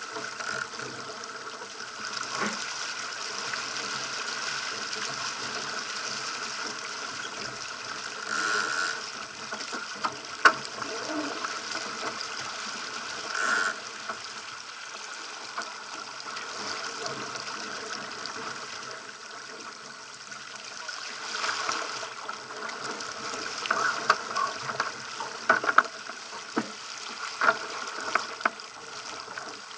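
Water rushing and splashing along the hull of a Pacer sailing dinghy under way through choppy water, with sharp knocks and slaps from the boat now and then, more frequent near the end.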